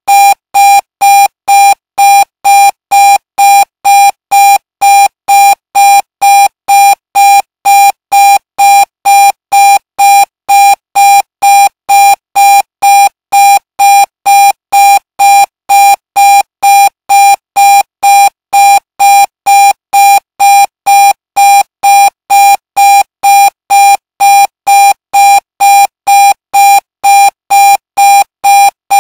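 Electronic alarm clock beeping: one loud, high beep repeated evenly about twice a second.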